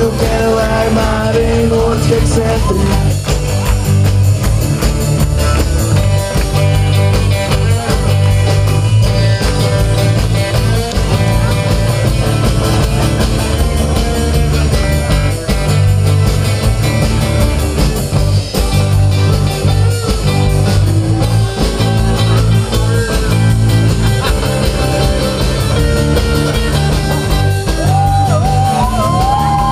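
Live rock band playing with electric guitars, acoustic guitar, bass and drums, a steady beat throughout.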